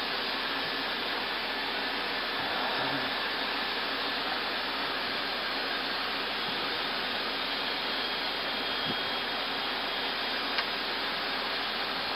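Steady rushing cabin noise in an Airbus A320 cockpit in flight, from airflow and the air-conditioning, with a faint click about ten and a half seconds in.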